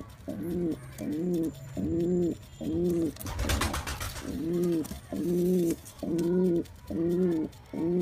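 A pigeon cooing over and over in an even series, about one coo every three quarters of a second. A brief burst of wing flapping comes about three and a half seconds in.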